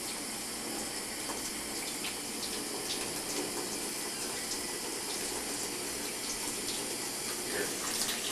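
Tap water running in a steady stream, with a few faint clicks.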